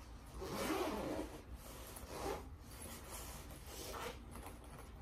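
A zipper on a black equipment case being pulled, with the case's fabric rubbing, in three short runs; the first, near the start, is the longest and loudest.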